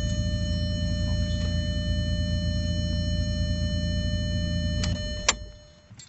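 Volkswagen Mk4 Jetta engine idling, with a thin steady whine over it. About five seconds in the ignition is switched off: a sharp click, and the engine runs down and stops.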